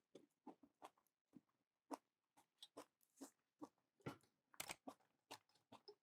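Faint chewing: a person eating hot-pot food, with soft, irregular crunches and mouth clicks a few times a second.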